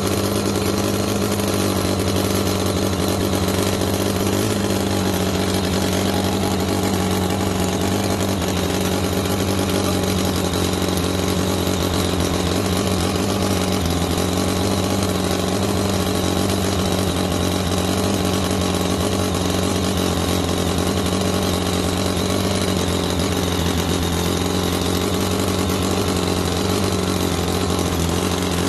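ENJOMOR 10cc Whippet single-cylinder four-stroke flathead (side-valve) model engine, water-cooled and petrol-fuelled, running steadily at high speed, around 6000 rpm.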